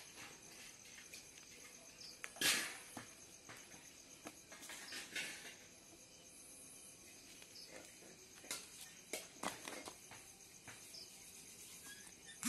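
Night insects chirping steadily, a high pulsing drone, broken by a few sharp knocks: the loudest about two and a half seconds in and several more between eight and ten seconds in.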